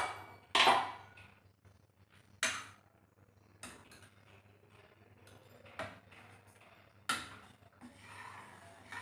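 Steel ladle stirring thick sambar in an open stainless-steel pressure cooker pot. It clinks sharply against the metal about five times, a second or two apart, with soft scraping between.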